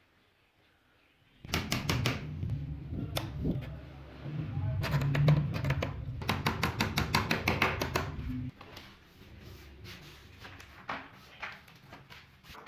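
Hammer tapping in quick, even strokes, driving a fixing into the edge of a PVC wall panel. The taps stop about two thirds of the way in, leaving a few lighter knocks.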